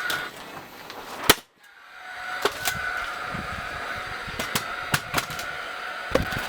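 A series of sharp knocks and clicks, with one loud crack about a second in, followed by a brief silence.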